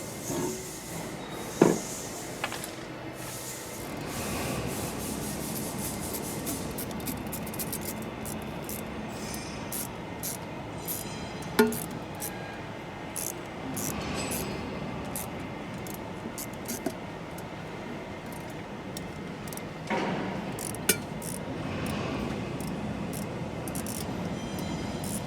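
Hand tools working on press brake ram and valve parts: scattered metal clinks and scraping, with a few sharp knocks, the loudest about two seconds in and near the middle, over a steady background hum.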